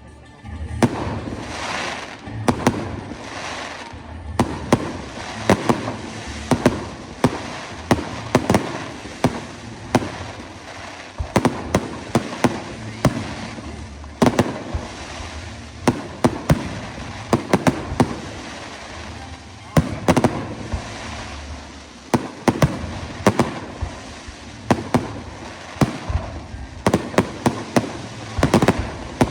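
Fireworks display: a dense, loud run of bangs and crackling reports, several sharp shots a second over a constant low rumble.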